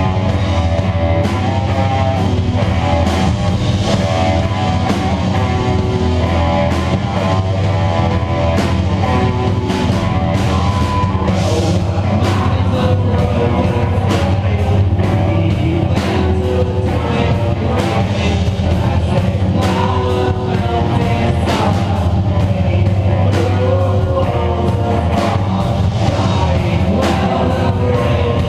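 A live rock band playing loudly: electric guitar and drum kit with frequent cymbal hits over a steady low drone.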